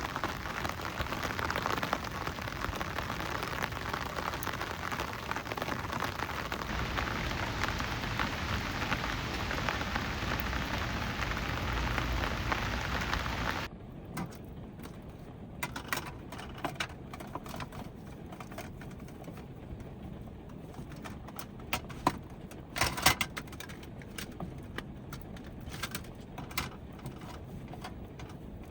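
Heavy typhoon rain pouring steadily, then cutting off suddenly about halfway through to a much quieter background with scattered ticks and knocks, the loudest a couple of sharp knocks about two-thirds of the way in.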